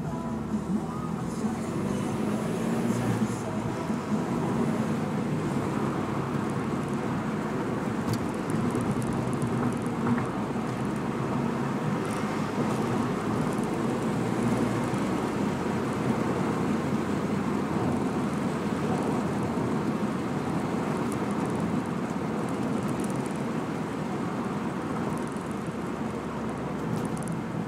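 Renault Mégane RS 225's turbocharged four-cylinder engine pulling steadily uphill, with steady engine hum and road noise.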